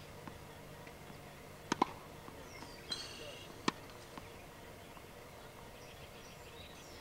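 Tennis ball pocks on a hard court: a quick double pock a little under two seconds in and a single one near four seconds, from the ball hitting racket strings and bouncing. Birds chirp briefly in the background around three seconds.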